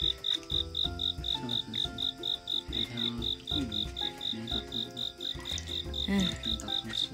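A cricket chirping steadily in a regular high-pitched pulse, about four chirps a second.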